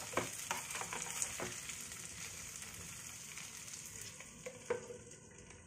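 Diced potatoes sizzling in hot mustard oil, with a wooden spatula scraping and clicking through them during the first second or so. Near the end a glass lid knocks down onto the pan with a short ring, and the sizzle turns faint and dull.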